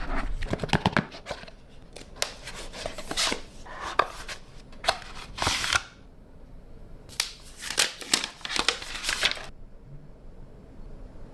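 Phone box and packaging being handled and opened: a run of clicks, taps and rustling scrapes in three spells, about the first second and a half, from two to six seconds in, and from seven to nine and a half seconds in.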